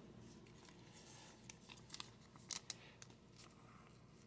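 Faint clicks and light slides of baseball trading cards being flipped through by hand, with a few sharp ticks about two to three seconds in; otherwise near silence.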